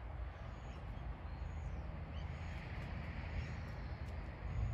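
Low, gusting wind rumble on the microphone, with faint bird calls in the background.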